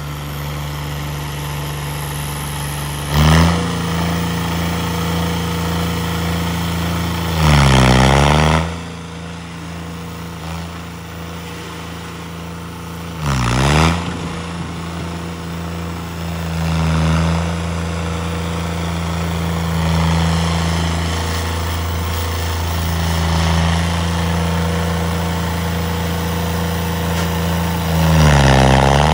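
Tractor engine running steadily, with about four short, loud surges in revs as it is worked hard during stunts; in each surge the pitch dips and then climbs back.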